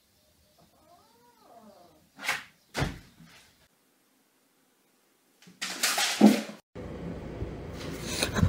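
Cat calls: a faint meow that rises and falls about a second in, then a louder cat cry about two-thirds of the way through. Two sharp knocks come between them.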